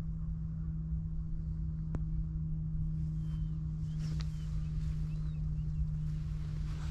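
A steady low hum over a rumble, with one click about two seconds in and faint short chirps from about halfway through.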